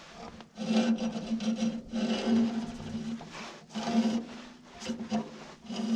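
Repeated rasping scrapes as a Wood-Mizer sawmill's rubber band-wheel belt is drawn along a straight edge to scrape off caked tar, pitch and sawdust, in uneven strokes about one or two a second.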